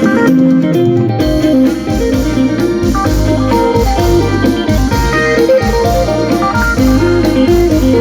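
Mor lam sing band music: an amplified phin (Isan lute) picks a quick melody over electric bass and a steady drum beat.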